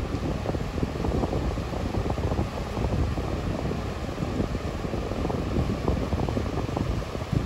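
Wind buffeting the microphone: a gusting low rumble that rises and falls without a break.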